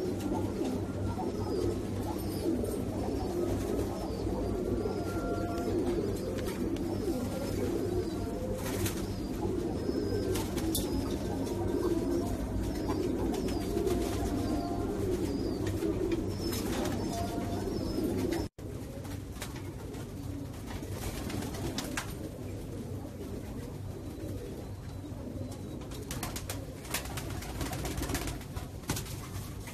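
Caged domestic pigeons cooing: a thick, continuous warbling coo for about two-thirds of the time. It then breaks off abruptly and gives way to softer, sparser sound with a few light clicks.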